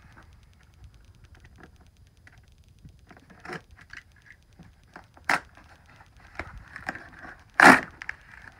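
A cardboard shipping box being handled and opened, with scattered light scrapes and taps. Near the end comes a short, loud tearing sound as the taped flap is pulled open.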